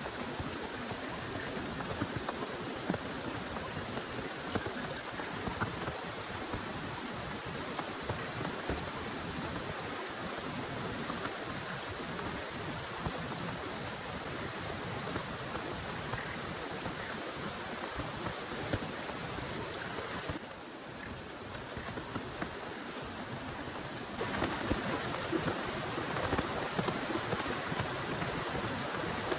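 Heavy rain pouring down steadily, a dense patter of drops on surfaces. It briefly turns quieter about two-thirds of the way through, then comes back heavier.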